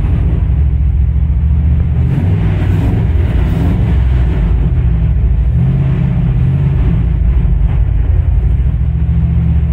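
The 1968 Ford F100 pickup's engine running steadily on its own with a low rumble.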